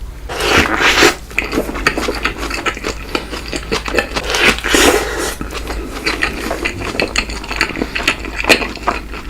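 Close-miked eating and food-handling noises: dense crackling and scraping with many small clicks and a few louder bursts.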